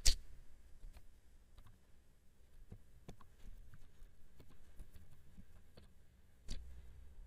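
Computer keyboard keys tapped one after another as a number is typed in: an uneven run of light clicks, with a louder click just after the start and another near the end.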